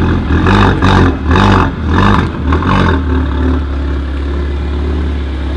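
Mercedes A45 AMG's turbocharged four-cylinder with a decatted, straight-piped Remus exhaust, blipped in a quick series of about five revs, then settling back to a steady idle for the last couple of seconds.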